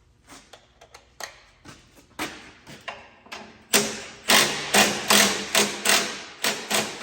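Ratchet wrench working a 14 mm bolt: a series of sharp metallic clicking strokes, faint and scattered at first, then loud and regular at about two to three a second from just past halfway.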